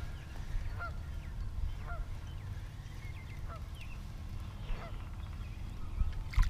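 A bird calling over and over in short rising-and-falling notes, about every two-thirds of a second, over a low rumble. Near the end, a short splash as the hooked crappie breaks the surface beside the kayak.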